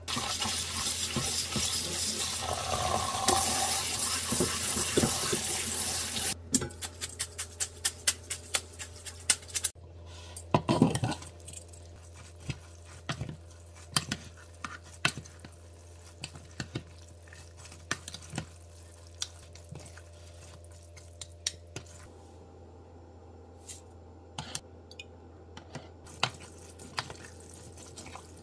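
Water splashing into a stainless steel sink as cooked noodles are drained into a metal colander, for about six seconds. Then a run of clicks and taps, and from about twelve seconds in, sparse light clicks of chopsticks against a plastic bowl as the noodles are tossed with sauce.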